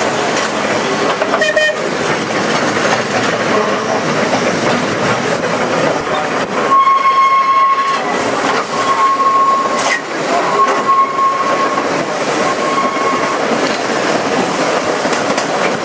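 Manx Electric Railway open crossbench electric tramcars running side by side on double track: a steady clatter and rumble of wheels on rail joints with wind noise. From about seven seconds in, a high single-note whistle is sounded four times in short blasts.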